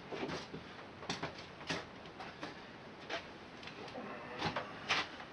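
Irregular clicks and knocks of tools and metal parts being handled while working on a mower wheel, about six short knocks a second or so apart.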